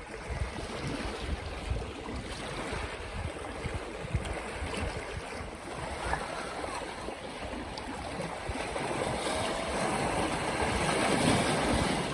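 Sea waves washing in, with wind gusting on the microphone; the wash grows louder near the end.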